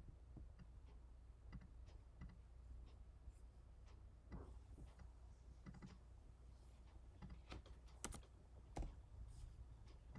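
Faint, irregular clicks of a computer keyboard and mouse, with two sharper clicks about eight seconds in, over a low steady hum.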